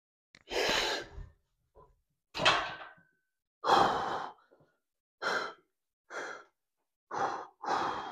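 A man's forceful breaths of exertion, about eight short, sharp exhales and inhales roughly a second apart, during a heavy overhead-press set.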